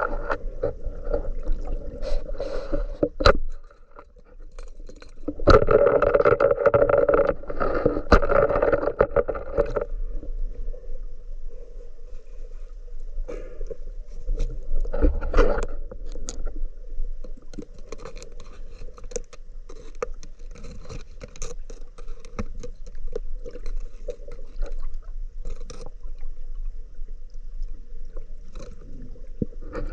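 River water rushing, with scattered scraping and knocking; it is louder from about five to ten seconds in.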